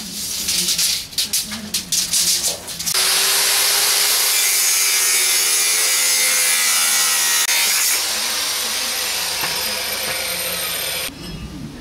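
Handheld electric angle grinder cutting steel, a loud steady grinding hiss that starts about three seconds in after a few knocks of handling. It runs on a little quieter for the last few seconds and stops suddenly near the end.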